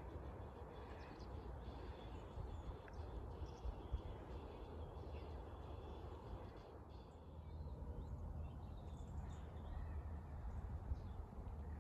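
Quiet outdoor ambience: a steady low rumble with a few faint bird calls in the background.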